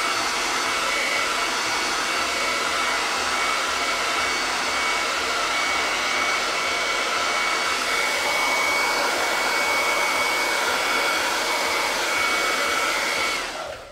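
Handheld hair dryer running steadily, a rush of air with a thin steady whine over it, switched off shortly before the end.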